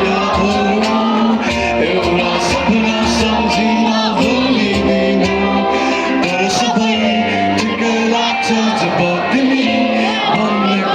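Live band music played loud, with singing over sustained instruments and regular drum hits.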